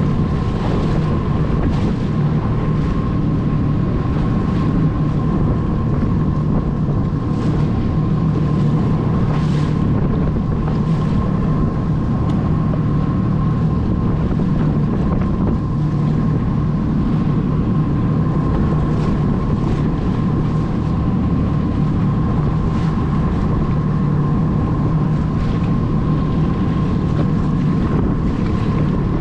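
Jet ski engine running steadily under way, a constant hum with a thin steady whine above it, and wind buffeting the microphone.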